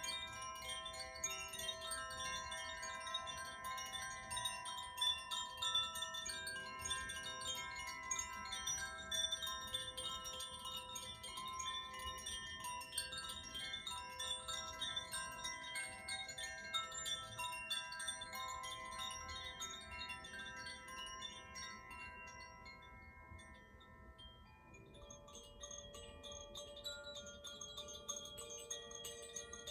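Tuned sound-healing chimes of the Koshi and Zaphir kind, hung on stands, ringing with many overlapping bright tones and quick tinkling strikes. The ringing dies down about three quarters of the way through, and a chime with a different set of notes starts up shortly after.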